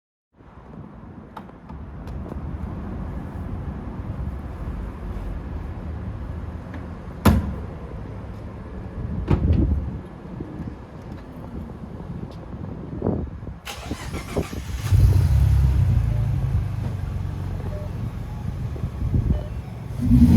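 A Morgan Roadster's 3.7-litre V6 engine running with a steady low rumble, with a sharp click about seven seconds in; the engine gets louder about fifteen seconds in.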